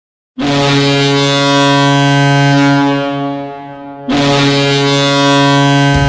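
Toronto Marlies hockey goal horn sounding two long, deep blasts with added reverb. The first blast starts about half a second in and fades out; the second cuts in sharply about four seconds in.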